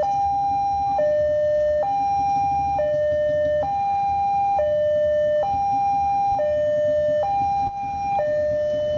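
Railway level-crossing warning alarm sounding with the barriers down: an electronic two-tone signal alternating steadily between a higher and a lower note, each held just under a second, warning of an approaching train. Road traffic rumbles faintly beneath it.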